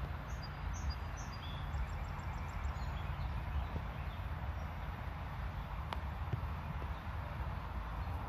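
Outdoor field ambience: a steady low rumble with an even hiss above it. A few faint high chirps come in the first couple of seconds, and a single sharp click sounds about six seconds in.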